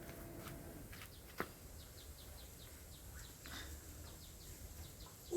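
Faint background bird chirping, short quick falling chirps repeated several times a second in runs, with one sharp click about a second and a half in.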